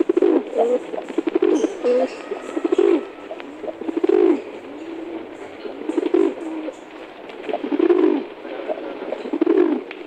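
Domestic pigeons cooing, low rolling coos repeated every second or two.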